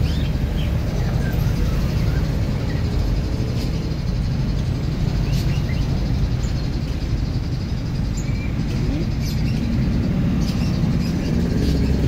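Steady low rumbling background noise with faint, short bird chirps now and then and a few light clicks.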